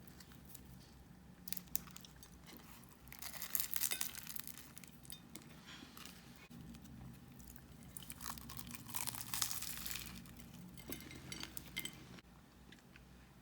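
Light handling sounds: a few sharp clinks and two longer bouts of crinkling, tearing rustle.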